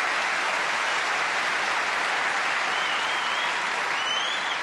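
Snooker audience applauding steadily, with a high, wavering whistle rising over the applause in the last second or two.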